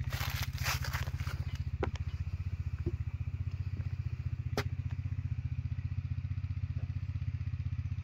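Footsteps crunching on dry leaves, then a few single knocks of boots on a wooden plank footbridge. Under them runs a loud, steady, rapidly pulsing low drone.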